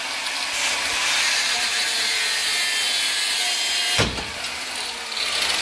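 Porter-Cable angle grinder with a cutoff disc, cutting into rusted steel at a truck's rear leaf spring pack. It runs steadily through the cut, with a brief hitch about four seconds in.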